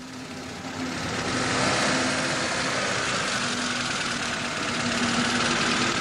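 Engine of a VAZ Zhiguli (Lada) sedan running steadily as the car makes slow manoeuvres. It gets louder about a second in, then holds level.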